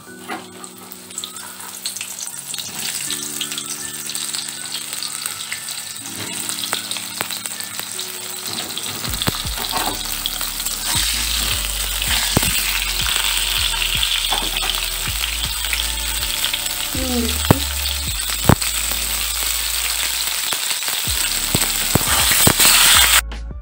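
Pointed gourd pieces frying in hot mustard oil in an aluminium kadai, the sizzle growing louder, with a spatula knocking and scraping against the pan as they are turned.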